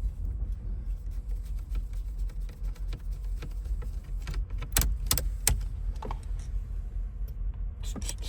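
Small metal and plastic parts of a 1993 Yukon's steering column clicking and rattling as they are worked loose by hand and with tools, with a few sharper clicks about halfway through, over a steady low rumble.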